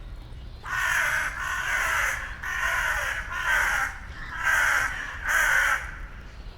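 A crow cawing, about six harsh caws in quick succession, some running together, then stopping near the end.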